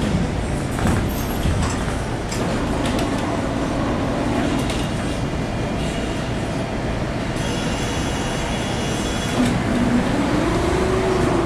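Tram running along its track, heard from inside the car: a steady rumble of wheels and running gear, with an electric motor whine that glides in pitch and rises near the end as the tram picks up speed.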